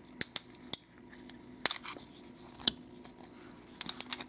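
Light metallic clicks and clinks of small lock parts being handled as the cylinder's springs and pins are tipped out. The clicks are sharp and irregular, with a quick cluster near the end.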